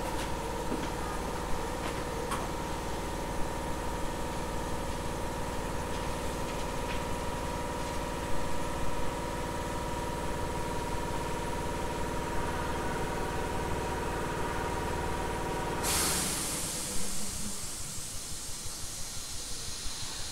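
Tobu 850-series electric train at a standstill, its underfloor machinery, most likely the air compressor, running with a steady hum and whine. About 16 seconds in, the machinery cuts out and a sudden loud hiss of released air follows, then fades away.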